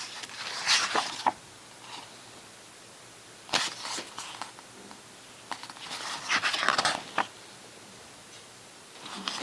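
Pages of a thick photo book being turned by hand, with a few short papery rustles and swishes in three separate bouts.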